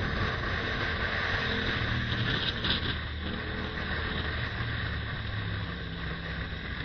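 Yamaha MT-07 parallel-twin motorcycle engine running at cruising speed, with steady wind noise on the microphone.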